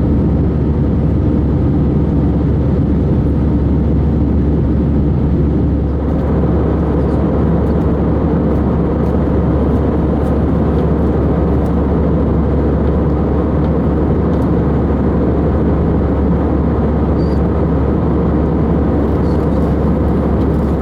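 Steady engine and airflow noise inside an Airbus A320's passenger cabin during the climb after takeoff, with a strong low hum. The hiss eases slightly about six seconds in.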